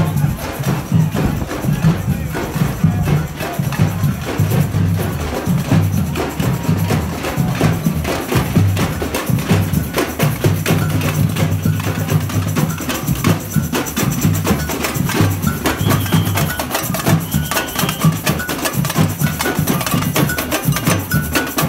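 Marching street percussion band playing a steady rhythm: deep drum beats under a busy pattern of metal hand drums and agogo bells.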